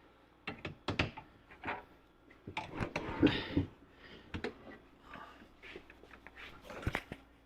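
Scattered light clicks and knocks of tools and parts being handled on a workbench, with a short grunt or murmur about three seconds in.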